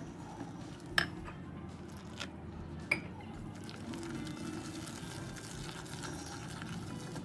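Wire whisk beating flour and water into a thick batter in a glass bowl, a steady scraping and stirring. The whisk clinks sharply against the glass three times, about one, two and three seconds in.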